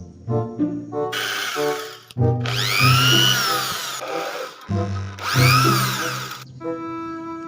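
Electric drill whirring in three short bursts; in the last two the pitch rises and then falls as it speeds up and slows down. Background music with plucked notes plays around it.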